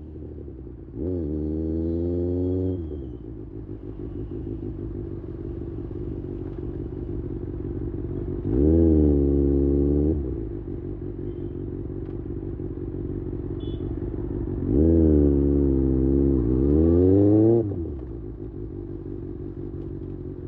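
Kawasaki Ninja ZX-6R inline-four engine ticking over steadily, with four quick revs that rise and fall in pitch: one about a second in, one near the middle, and two close together near the end.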